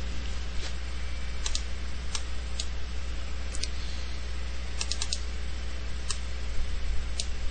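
Computer mouse clicks, about a dozen at irregular intervals, several in quick pairs like double-clicks, over a steady low hum.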